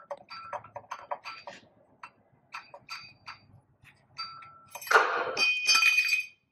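Small steel fasteners and the access cover on a tractor engine's front timing cover clinking as they are worked loose by hand: a run of short, ringing metal clicks. A louder clatter of ringing metal about five seconds in lasts a little over a second.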